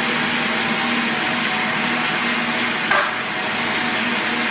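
Overhead rain shower head pouring a powerful, hot stream of water onto a person in a glass shower stall: a steady hiss of spray, with a low hum beneath and a brief sound about three seconds in.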